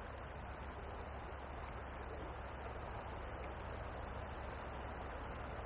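Steady rush of shallow river water flowing over gravel, with thin, high-pitched bird calls coming and going over it.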